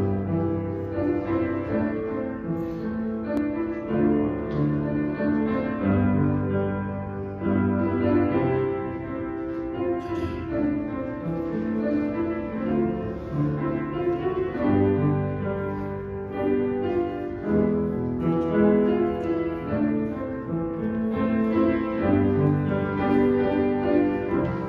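Instrumental piano music, slow held chords over long sustained bass notes.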